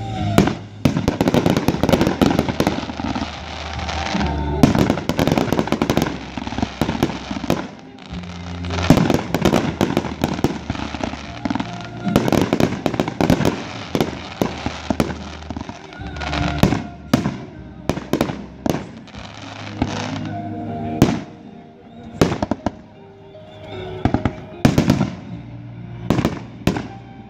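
Aerial fireworks going off in quick succession: sharp bangs of shell bursts and launches with crackling, in several dense clusters, over background music.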